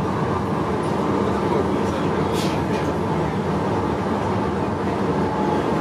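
Cabin running noise of a modern articulated tram under way: a steady rumble of wheels on rail and traction equipment, with a brief hiss about halfway through and passengers' voices faintly in the background.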